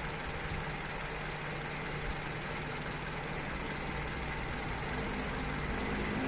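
Carburetted engine idling steadily while its idle speed is being turned down during carburettor tuning.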